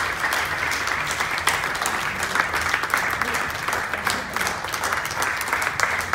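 A large audience applauding, a dense steady clapping of many hands.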